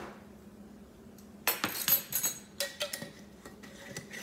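A measuring spoon clinking and tapping against a container rim as dried oregano is spooned into a crock pot: two quick runs of sharp clinks, the first about a second and a half in, the second just under three seconds in.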